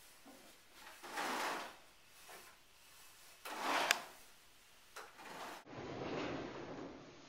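A thick red fabric cord is dragged over a wooden table and floor, making several drawn-out scraping swishes. There is a sharp click near the middle.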